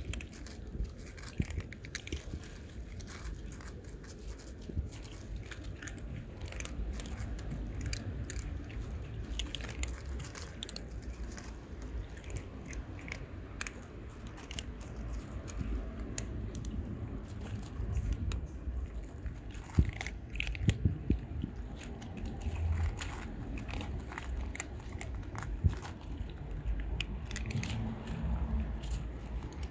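Kittens crunching dry cat kibble: a steady run of irregular small crunches and clicks over a low steady rumble.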